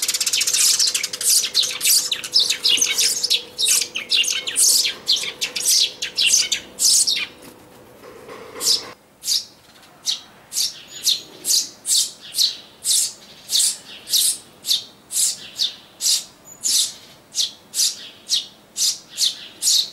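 Eurasian tree sparrow nestlings begging at a nest box: rapid, overlapping high chirps for the first several seconds, then, after a short break, a steady run of single chirps about two a second.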